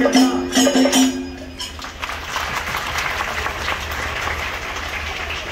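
Voices singing a Kanyarkali song over jingling percussion, stopping about a second in. Then a steady haze of crowd noise.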